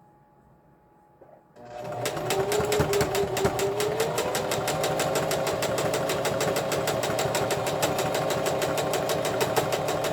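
Electric sewing machine starting up about a second and a half in and stitching at a steady, rapid rhythm, its motor whine rising a little in pitch as it speeds up, then stopping near the end. It is a new machine that runs noisily.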